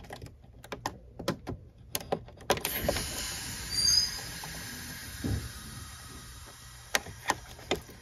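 Small clicks and scrapes of a chrome headlamp switch knob being turned and worked off its metal shaft, with a steady hiss that comes in about three seconds in.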